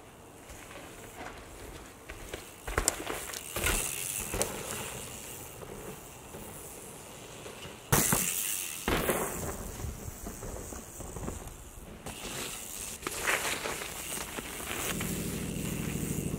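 Transition mountain bike ridden hard on a loamy dirt trail: tyres crunching and skidding through soft soil, with sudden thuds and rattles from drops and landings, the sharpest about halfway through. Near the end a steady, even buzz like a coasting rear hub's freehub runs for about two seconds and cuts off sharply.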